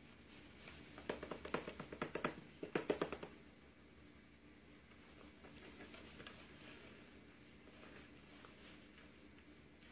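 A quick run of light taps and clicks on a plastic high-chair tray, lasting about two seconds and starting about a second in, then faint room tone.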